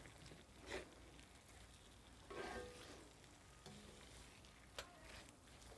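Faint stir-frying: a wooden spatula stirring and scraping diced vegetables and chicken in a wok, with a few short scrapes over light sizzling.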